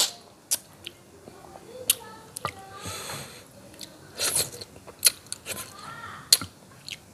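Close-up eating sounds of a patin (pangasius catfish) head in curry eaten by hand: sharp lip smacks and sucking clicks as meat is sucked off the bones, with chewing in between.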